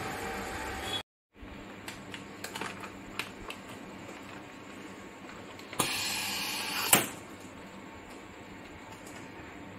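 Continuous inflating band sealer running with a steady hum as a pouch is fed onto its conveyor, with a few light clicks. About six seconds in, a louder hiss-like rush lasts about a second and ends in a sharp click. The sound cuts out briefly about a second in.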